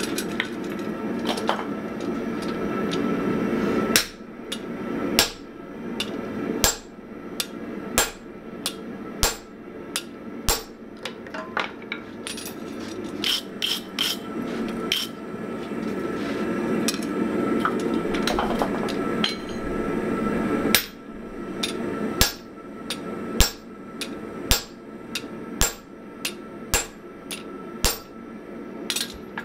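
Hand hammer striking a hot damascus steel billet on an anvil, sharp metallic blows coming roughly once a second in two runs with a pause of a few seconds between them; near the end the blows drive a handled hot-cut chisel into the bar. A steady rushing noise with a faint whine runs underneath.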